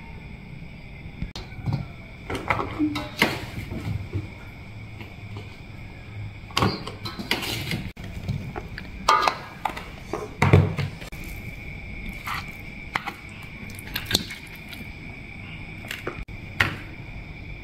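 Irregular knocks, taps and clattering handling noises, with a few louder thumps near the middle, over a steady high-pitched tone.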